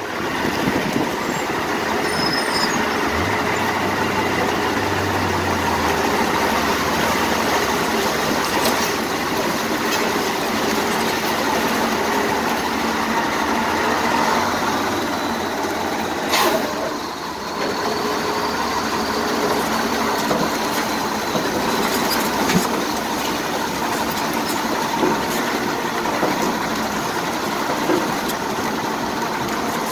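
A 1991 BMY M925A2 6x6 military truck's Cummins 6CTA8.3 turbo-diesel running as the truck drives through muddy water, with its tyres churning and splashing spray. The sound is a steady, dense rush, with a brief drop about halfway through.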